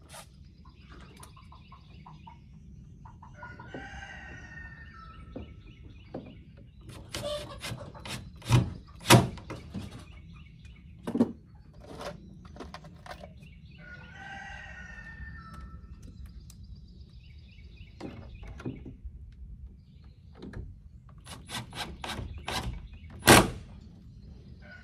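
A rooster crowing twice, about four seconds in and again about fourteen seconds in, with small birds chirping faintly. Between the crows come several sharp knocks and clicks from work on the coop's wooden wall, the loudest around nine seconds in and just before the end.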